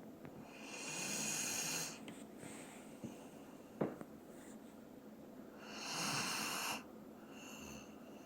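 A sleeping Doberman snoring: two long, wheezy breaths about four seconds apart, each swelling and then stopping abruptly, with a weaker breath near the end. A brief sharp click comes between the two loud breaths.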